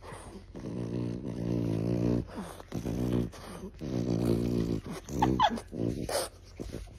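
Small flat-faced dog making two long, low grumbling vocalizations while held close, followed about five seconds in by a couple of short, higher whines.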